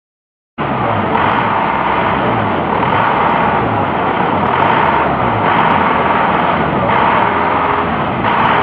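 Truck engine running loudly and steadily, close to the microphone, with a low pulsing pattern about twice a second. It cuts in abruptly after a moment of dead silence.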